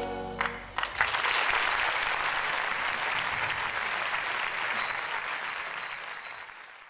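A show band's last held chord cut off by two sharp hits, then a large audience applauding, fading out near the end.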